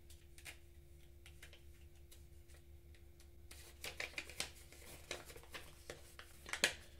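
Faint crinkling and crackling of a folded sheet of paper being unfolded by hand, sparse at first and busier and louder from about halfway.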